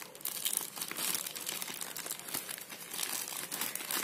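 Plastic courier mailer bag crinkling as hands grip it and pull it open, a dense run of small crackles.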